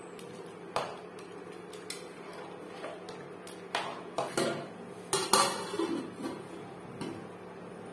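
Metal spoon clinking and scraping against an aluminium pressure cooker as a stew is stirred, about one knock a second, then the cooker's metal lid is set on with the loudest clanks about five seconds in. A faint steady hum runs beneath.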